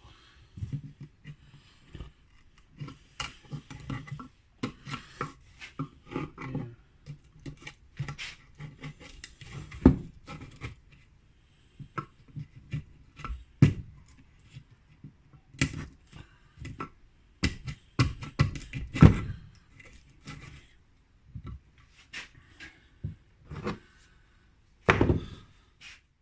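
A chisel knocking and scraping at a cricket bat's willow blade and cane handle, chipping the old handle out of the splice: irregular knocks and scrapes with short pauses, a few of the knocks sharp and loud.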